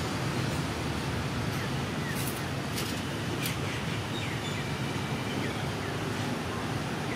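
Steady rushing background noise, with a few faint short chirps and light clicks over it.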